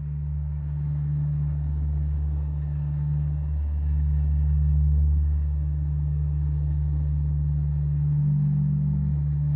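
Low, steady rumbling drone with held low tones; a slightly higher tone joins about eight seconds in.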